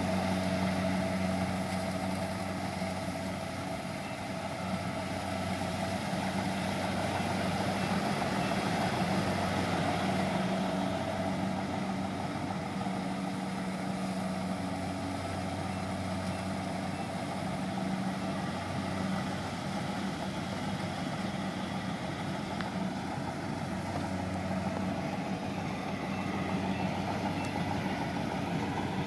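Kubota DC-70 combine harvester's diesel engine running steadily under load as the machine cuts and threshes rice, a continuous even drone.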